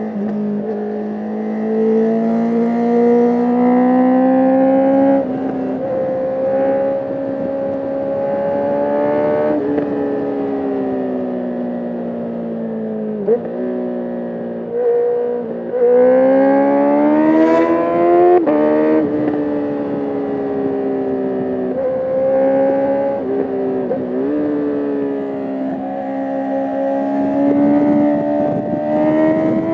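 Motorcycle engine heard from the rider's position, pulling through the gears: the revs climb steadily and drop at each gear change, over and over. Around the middle the revs rise sharply, with a brief crack at the shift.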